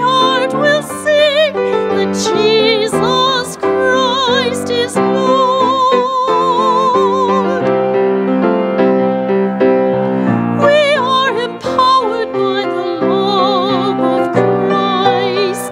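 A woman singing with a wide vibrato, accompanying herself on a grand piano.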